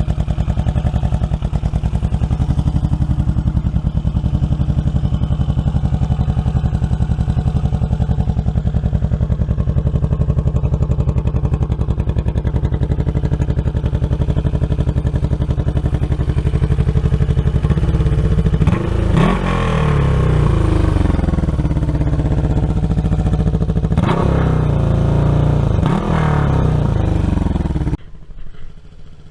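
1977 Yamaha XS360's air-cooled parallel-twin engine, fitted with a MAC exhaust, idling steadily, then revved up and let back down twice in the last third. The sound drops off suddenly near the end.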